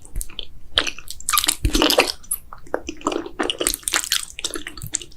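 Close-up sounds of a person chewing Korean-style instant noodles: a steady run of wet, squishy mouth clicks and smacks.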